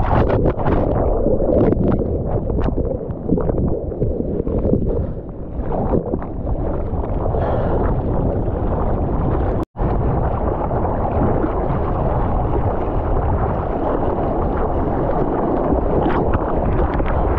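Ocean wave and whitewater rushing, with wind buffeting the microphone of a surfer's GoPro. The sound drops out for an instant about ten seconds in.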